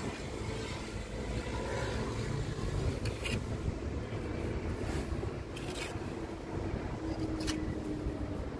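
Steady low outdoor rumble with a few short scrapes of a steel pointing iron working lime mortar into brick joints.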